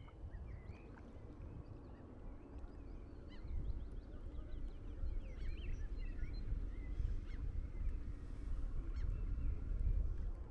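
Wind rumbling on the microphone, growing stronger about three and a half seconds in, with birds calling now and then over it.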